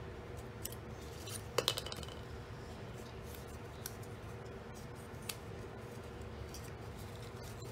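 Faint handling of cardstock as score lines are worked into mountain folds: scattered light ticks and creasing, with a brief clatter of a hard object about a second and a half in.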